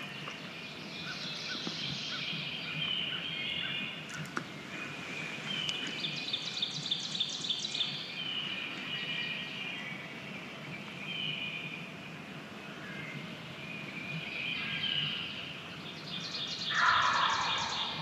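Small songbirds chirping and trilling steadily, with a rapid trill about six seconds in. Near the end a wild turkey gobbles once, the loudest sound.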